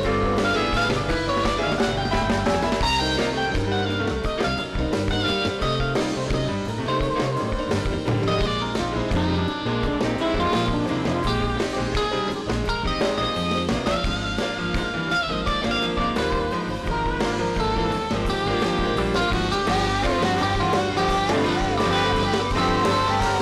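Live rock band playing an instrumental passage: electric guitar over bass and drum kit, with a melodic line weaving through.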